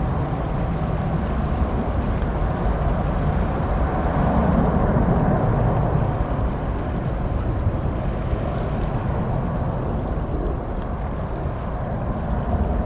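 Steady low rumble of an Airbus A350-900's Rolls-Royce Trent XWB jet engines on a departure, swelling slightly a few seconds in.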